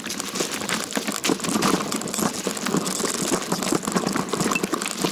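Dense, irregular crunching and rustling of dry leaves and brush underfoot and against the body while walking a rough trail.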